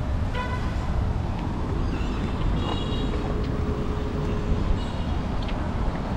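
Steady rumble and hiss of city street traffic at a busy crossing, with a few faint, brief higher-pitched sounds over it.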